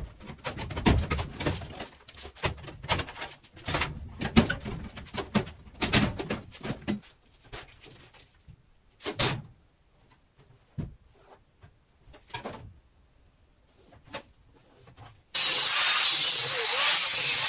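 Scattered metallic clunks and knocks as a steel filing cabinet is handled. About fifteen seconds in, an angle grinder starts cutting the cabinet's thin sheet steel, loud and steady to the end.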